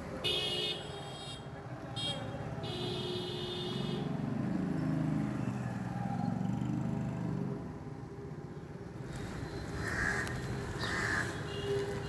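Town street ambience. Crows caw a few times in the first three seconds, and a motorbike engine passes by, loudest through the middle.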